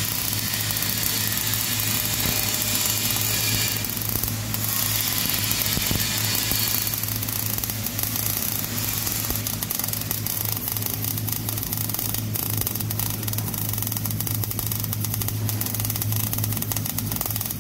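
MIG welding arc on steel plate, a continuous crackling hiss with fine spatter pops, over a steady low hum, during a vertical-position weld.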